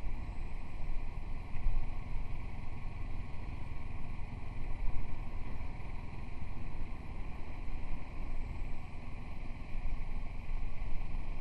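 Wind buffeting the microphone of a moving motorcycle, with a low rumble of road and engine noise underneath; the level rises and falls unevenly with the gusts.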